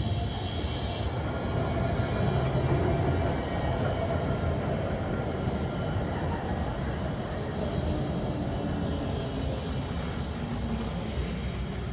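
NGT8D low-floor articulated tram with three-phase drive running past on street track: a steady rolling rumble with a faint motor hum. A high squeal at the start fades within about a second.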